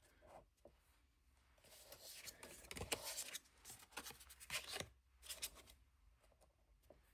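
Tarot cards and paper being handled: soft rustles and light taps and clicks, busiest through the middle few seconds.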